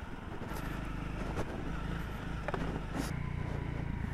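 Honda CRF300L's single-cylinder engine running at low revs in second gear down a rocky descent, with a few sharp knocks from the bike going over the rocks.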